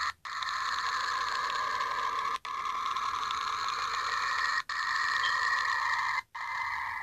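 A steady hissing space drone, sonified planetary or moon radio data, with a higher and a lower band of pitch. It is broken by four brief dropouts about every two seconds.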